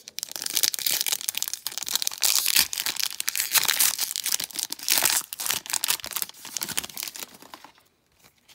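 Foil wrapper of a trading-card pack crinkling and tearing as it is opened and handled, a dense crackle that stops about eight seconds in.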